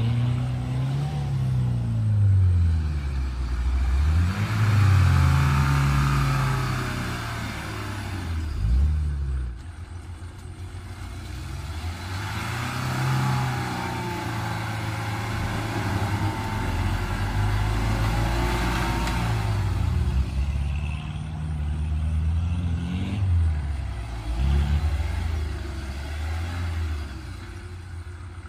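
Mahindra CJ3B jeep's engine revving up and down over and over, its pitch rising and falling every few seconds as it is driven, with louder spells of rough noise in between.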